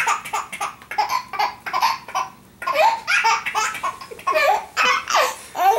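A baby laughing in a string of short bursts, with a brief pause about halfway through.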